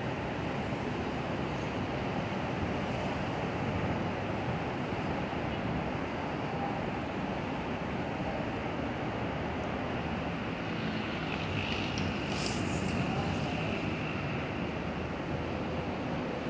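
Steady outdoor rumble and hiss with no clear single source, with a brief higher hiss about twelve seconds in.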